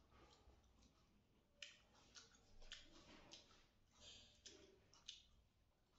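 Faint eating sounds: a string of short smacks and clicks from chewing and from hands mixing rice on steel plates, several in quick succession.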